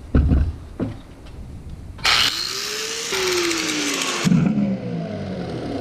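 A couple of handling knocks, then a power grinder spins up about two seconds in and grinds down part of a steering knuckle for about two seconds, its pitch dropping under load. It lifts off sharply and the motor winds down with a falling whine.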